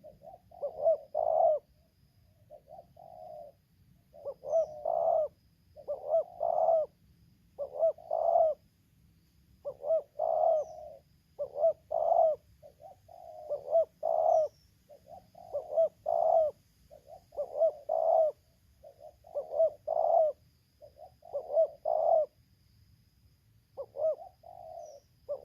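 Spotted doves cooing: short phrases of three or four coo notes, repeated about every two seconds without a break.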